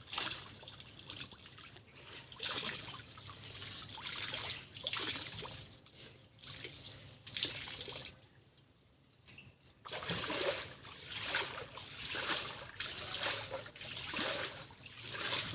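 Pond water splashing, trickling and dripping as bed sheets are rinsed by hand, in uneven bursts with a brief lull about eight seconds in.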